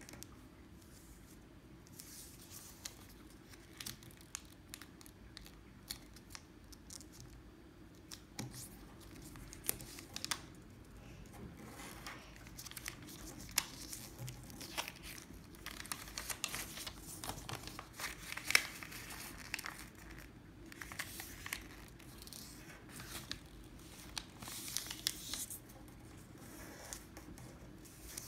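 Sheet of origami paper being folded and creased by hand: irregular crinkling and rustling with sharp crackles as the folds are pressed flat.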